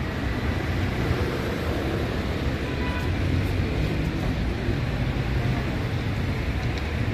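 Steady city street background noise: a low rumble of traffic.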